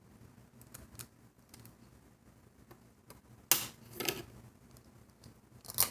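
Light clicks and taps of a plastic rubber-band loom and its hook being handled, with a sharper knock about three and a half seconds in and a few more near the end.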